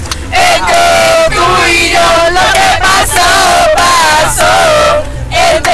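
A group of people singing a song together loudly, shouting along in long sung phrases, inside a vehicle.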